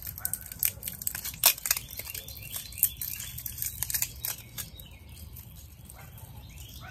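Dry wood-shaving tinder crinkling and crackling as fingers pull it apart and crumble it onto a small metal stove's grate: a run of sharp, irregular crackles that thins out after about four and a half seconds.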